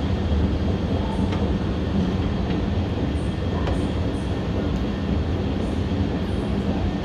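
Heathrow Terminal 5 Transit driverless shuttle car, heard from inside: a steady low rumble and hum with a few faint high ticks.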